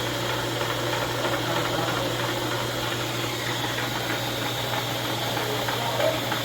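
Machine tool running steadily: a constant low hum with a busy rattling noise over it, unchanged throughout.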